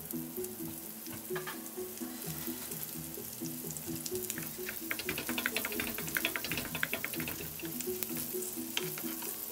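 Floured pork chops sizzling in foaming butter and olive oil in a frying pan on low heat. The crackle grows denser about halfway through, and a spoon goes into the pan near the end to baste. Soft background music plays underneath.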